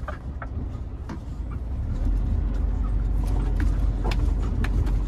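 Heavy truck heard from inside its cab: low engine and road rumble that grows louder about two seconds in as it rolls over a railway level crossing, with scattered clicks and knocks of cab rattle over it.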